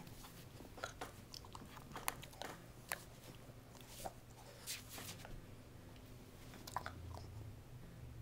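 Boston terrier gnawing and mouthing a hard red rubber ball: faint, scattered clicks of teeth working the rubber.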